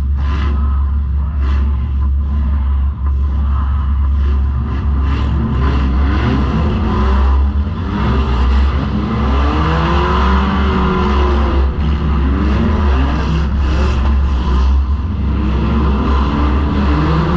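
Four-cylinder demolition derby car's engine revving up and down again and again over a heavy steady rumble, heard from inside the car, with scattered knocks and clatter from the car body.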